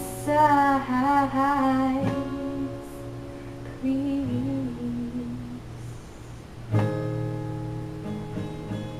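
Acoustic guitar strummed while a voice sings long, wavering held notes; a fresh strum comes about two seconds in and another about seven seconds in.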